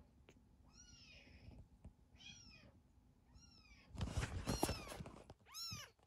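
Baby kittens about two weeks old mewing: short, high calls that rise and fall in pitch, about one a second, with a louder, noisier burst of mewing about four seconds in.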